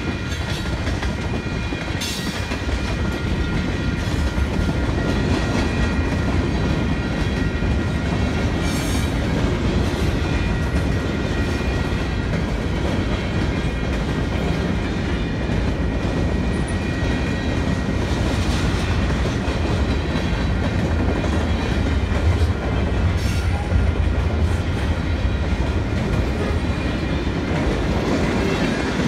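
Freight train cars rolling past at speed: a steady low rumble of steel wheels on the rails, with clickety-clack from the rail joints and occasional sharper clanks.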